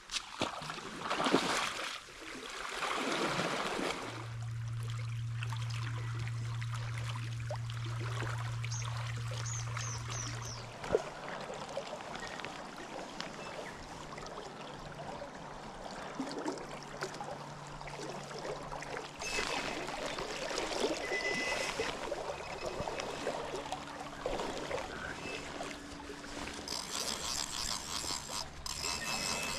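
Swift river water running, with two rushing whooshes in the first few seconds and a steady low hum for several seconds after them. Near the end, the fly reel clicks rapidly as line is wound in.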